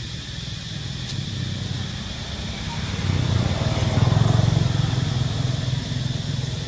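A motor vehicle engine running, a low steady hum that swells louder about three seconds in and eases off again, over a steady high insect drone.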